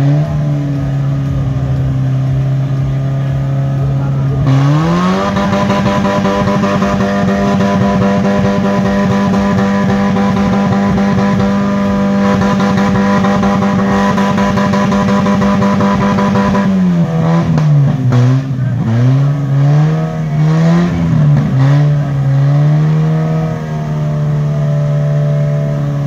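A wreck car's engine being thrashed to destruction. It runs steadily, then is revved up about four seconds in and held flat out at a constant high pitch for about twelve seconds. It then drops back and is blipped up and down repeatedly.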